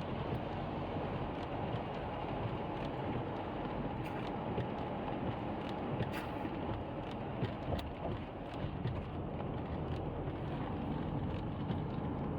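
Steady road noise of a car being driven on a wet road, heard from inside the cabin: engine and tyre hum with scattered faint ticks.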